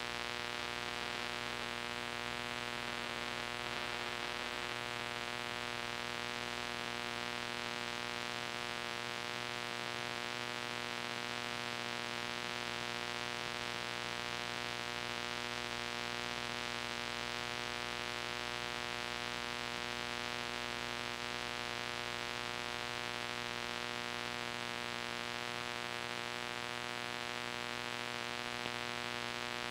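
Steady hiss with an electrical hum of many fixed tones and no music: the noise floor of an old VHS tape recording.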